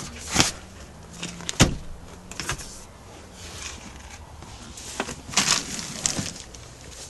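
Scattered knocks and clicks with rustling handling noise inside an SUV's rear cabin, from someone moving about the seats with the camera in hand; the loudest knock comes about one and a half seconds in.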